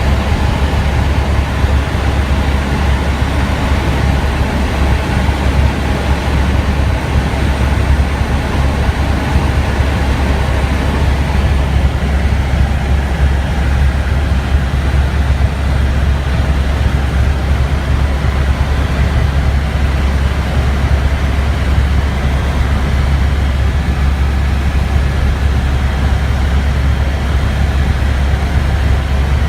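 Helicopter in flight, heard from inside the cabin: the engine and rotors make a loud, steady low drone with no change throughout.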